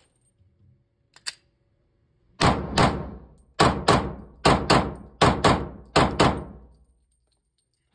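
Glock G23 Gen5 pistol in .40 S&W fired ten times as five quick double taps, each pair about a quarter of a second apart, every shot ringing on in the indoor range. About a second in, two faint clicks come from the pistol being handled before the firing.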